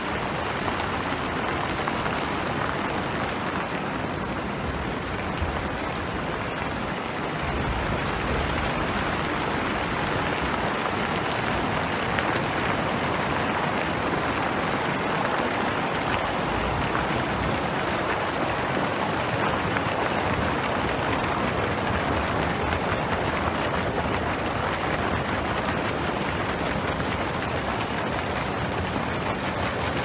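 Steady hiss and splatter of water jets from an arched walk-through fountain.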